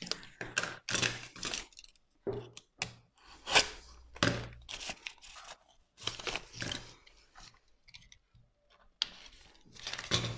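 Plastic squeegee and fingers rubbing and scraping over self-adhesive vinyl film, with the film crinkling as it is pressed and folded around a wooden stool leg. The sound comes as a run of short, irregular scrapes with brief pauses between them.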